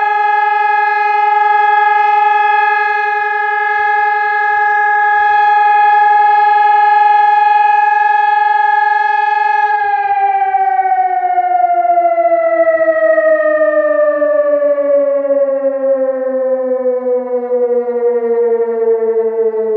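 SES 1200 civil-defence siren sounding a steady tone for about ten seconds, then gliding slowly down in pitch.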